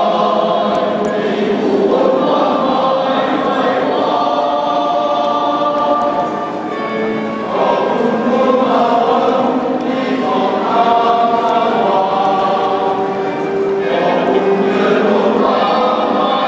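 Men's choir singing in harmony, phrases of long held notes with a short break between phrases about seven seconds in.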